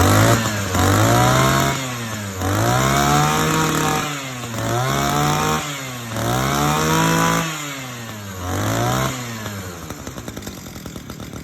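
Small two-stroke engine revved up and let back down five times in quick succession, then dropping to a ticking idle near the end.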